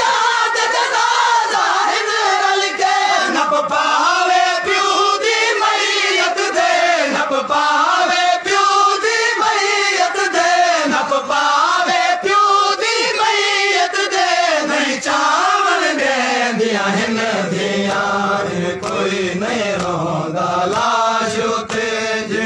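A group of men chanting a Saraiki/Punjabi noha, a Shia mourning lament, in unison behind a lead reciter on a microphone, with frequent sharp slaps of chest-beating (matam). About two thirds of the way through, the chant drops to a lower pitch.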